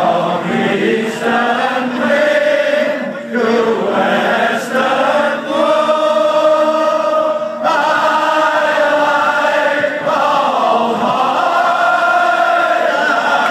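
A group of voices singing together, holding long drawn-out notes that move from pitch to pitch, with a sliding fall near the end.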